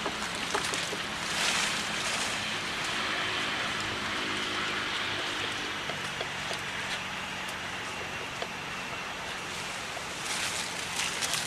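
Steady outdoor background hiss with scattered small clicks, swelling briefly a second and a half in and again near the end.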